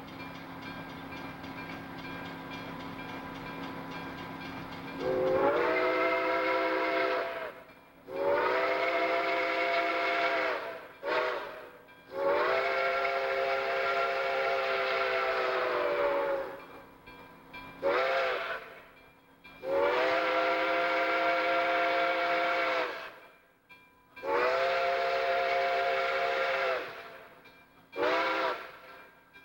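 Steam locomotive whistle on Chesapeake and Ohio 2-8-4 Berkshire No. 2765, sounding a chord of several notes. It blows the grade-crossing signal of long, long, short, long twice as the engine approaches a road crossing, and each blast sags in pitch as it cuts off. Before the whistle starts, about five seconds in, only the steady hum of the approaching train is heard.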